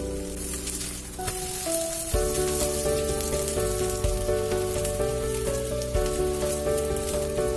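Chive pancake sizzling in hot oil in a frying pan, a steady hiss, under background music of held notes that change pitch every second or so.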